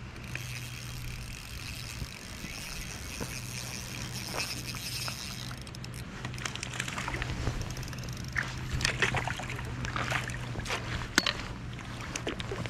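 Water splashing and sloshing: a hooked trout splashing at the surface. A steady watery hiss gives way about halfway through to quick, irregular splashes.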